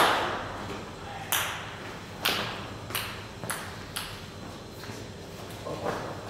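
Table tennis balls clicking off bats and tables elsewhere in the hall: a handful of sharp knocks at uneven intervals, each with a short echo.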